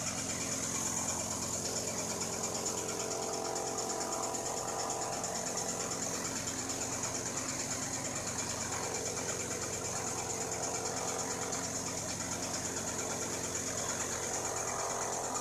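Machinery running steadily, with a constant high whine over a low hum.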